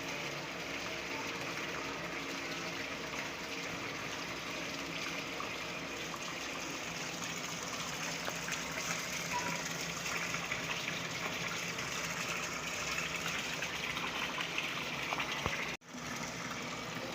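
Water running and splashing steadily, an even rushing hiss that cuts out for a split second near the end.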